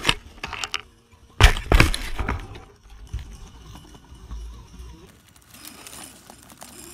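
Radio-controlled Axial SCX10 rock crawler tipping over onto its side among rocks and logs: sharp clattering knocks of its plastic body and roll cage right at the start and again about a second and a half in, then fainter rattling and scraping.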